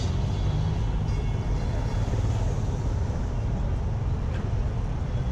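Steady low rumble of road traffic, with a van driving past close by near the start.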